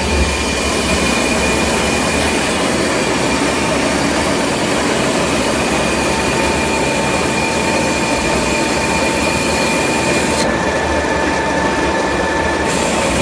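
Spindleless veneer peeling lathe running: a steady loud mechanical noise with a constant high whine over it. About ten seconds in the hiss thins and the whine drops to a lower pitch for a couple of seconds.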